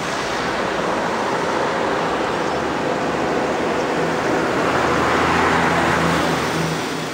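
Road traffic noise building as a large vehicle drives past close by, with a low engine note. It is loudest about five to six seconds in, then fades.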